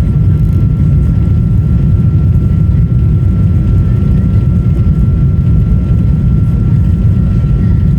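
Boeing 777-200 airliner's jet engines and airflow heard from the passenger cabin: a loud, steady deep rumble with a thin steady whine above it.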